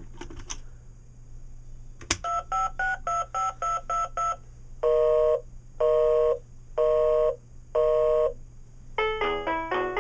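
VTech Little Smart Pull n' Play rolling toy phone playing its electronic sounds: a click about two seconds in, a quick run of about ten short dialing beeps, then four longer ring tones about a second apart. A tune with many quick notes starts near the end.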